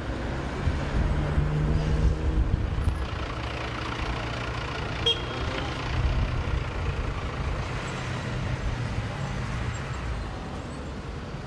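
City street traffic: car and bus engines running with a steady low hum as vehicles move past, and a short click about halfway through.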